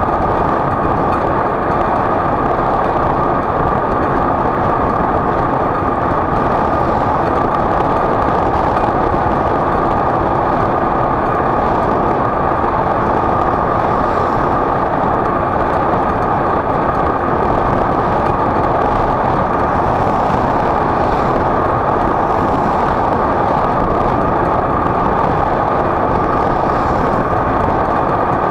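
Steady, unbroken running noise of a vehicle on the move, with no change in pitch or speed.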